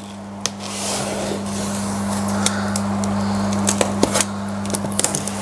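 Packing tape being cut and peeled off a cardboard box: a crackling, rustling noise with scattered sharp clicks, over a steady low hum.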